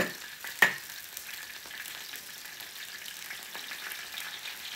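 Chopped chives frying in oil in a large iron wok, a steady sizzle, with a sharp knock a little over half a second in.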